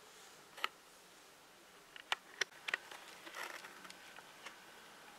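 A few faint, sharp ticks at irregular intervals, with a short rustle about three and a half seconds in.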